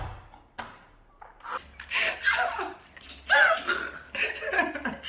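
Two women laughing hard in repeated bursts, starting about a second and a half in. Two sharp smacks come in the first second.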